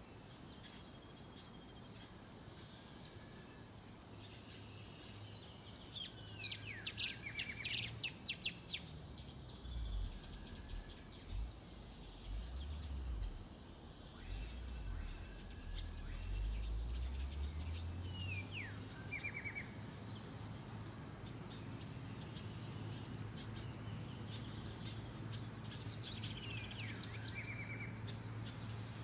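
Birds calling in bursts of quick downward-sweeping whistles ending in rapid trills, three times, over a steady low hum. A low rumble rises and fades in the middle.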